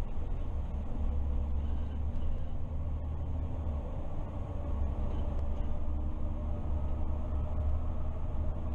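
MAN Lion's City CNG city bus driving along, heard from the driver's cab: a steady low rumble of the natural-gas engine and drivetrain with road noise, and a faint whine that rises slightly near the end.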